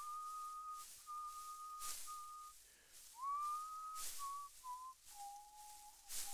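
A person whistling a slow melody: long held notes on one pitch, a slide up into a note a little past three seconds in, then stepping down to a lower note held to the end. A short hiss comes roughly every two seconds.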